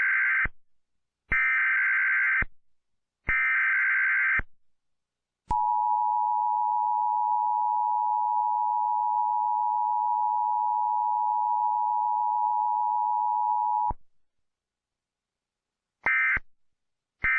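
Emergency Alert System broadcast tones: three one-second bursts of screeching digital header data, then the steady two-tone attention signal held for about eight seconds, cut off sharply, followed near the end by the first short end-of-message data bursts.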